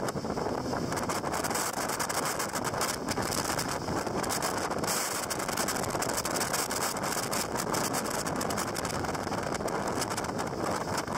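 Jet boat running at speed: a steady rush of engine and water, with wind buffeting the microphone.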